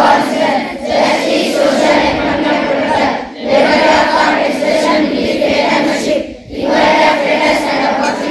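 A large group of schoolchildren reciting a pledge aloud in unison, in phrases of three to four seconds with short breaks between them.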